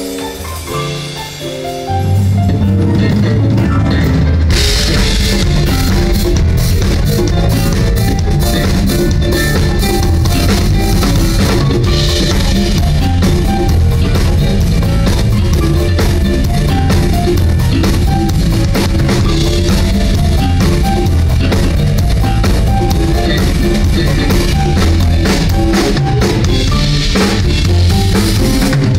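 Live band playing, led by a drum kit with kick drum, snare rimshots and cymbals, over electric bass and hand percussion. It opens with a few seconds of soft held notes; the bass comes in about two seconds in and the full drum kit a couple of seconds later.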